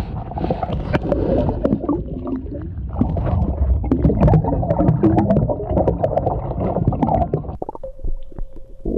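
Underwater gurgling and churning water with many small clicks and pops, dense and rumbling. Near the end the churning thins out, leaving a steady hum-like tone.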